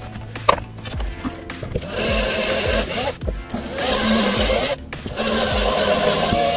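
Cordless drill/driver running in three bursts of a second or so each, with short pauses between, over background music with a steady beat.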